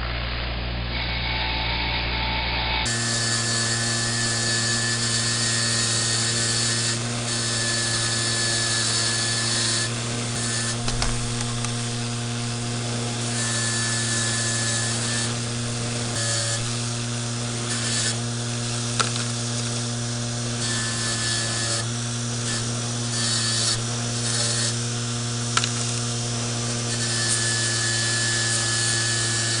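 Motor-driven wire wheel running with a steady hum while small metal parts are held against it, giving a scratchy rasp that swells and eases as each part is pressed in and turned.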